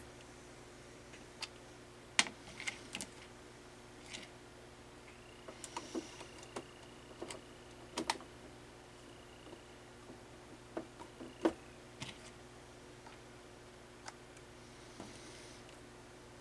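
Scattered light clicks and taps of small parts and test leads being handled on a workbench, over a low steady hum. A faint steady high tone sounds from about five seconds in until about twelve seconds in.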